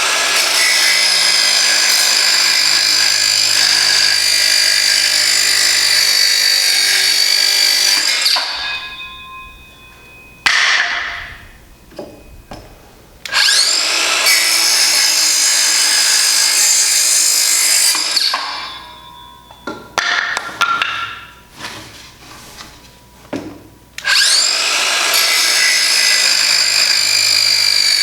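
Circular saw fitted with a multi-material blade, cutting through pieces of wood with a high-pitched whine. It runs in three long cuts, each winding down with a falling pitch, with a short spin-up between the first two and a few knocks before the last.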